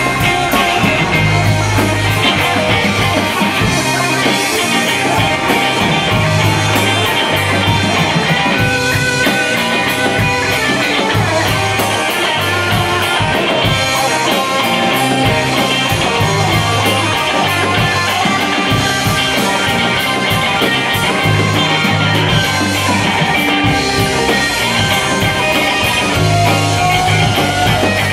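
Live rock band playing loud and continuous: two electric guitars, electric bass and a drum kit.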